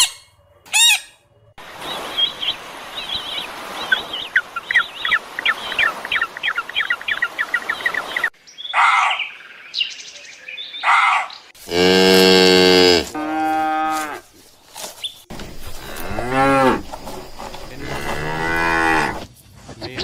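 A run of animal calls: first a quick series of high bird chirps over a steady hiss, then several loud, drawn-out bellows from a large hoofed animal, the longest lasting about a second and a half, a little past the middle.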